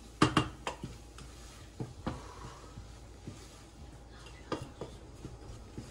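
A spoon knocking and scraping against a pot while flour is stirred into melted butter to toast it for a béchamel roux. A couple of sharp knocks come about a quarter second in, then scattered lighter taps.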